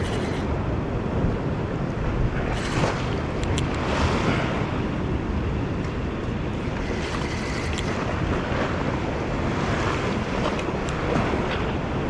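Sea waves washing and breaking against a rocky shore in swells, with wind buffeting the microphone. A few faint clicks sound over the surf.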